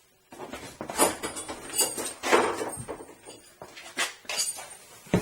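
Metal tools or parts clinking and clanking several times as they are handled, with a light metallic ring on some of the knocks.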